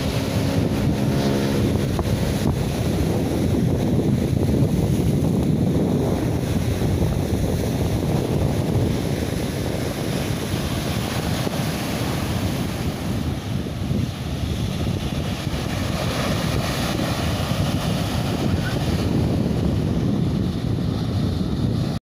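Wind buffeting the microphone over the wash of sea waves on the shore. A low engine drone fades out about two seconds in.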